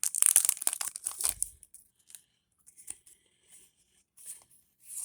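A foil Yu-Gi-Oh booster pack being torn open and crinkled for about a second and a half, then faint rustles and taps of the cards being handled.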